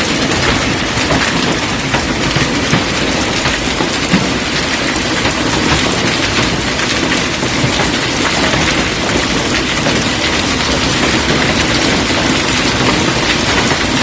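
Hailstorm with rain: a dense, steady pelting of hailstones and rain on hard surfaces.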